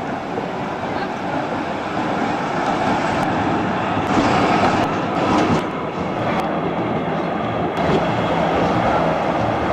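Tram passing close by on street-level track, a steady running noise that grows louder about four seconds in. A few sharp clicks come around the middle and again near the end.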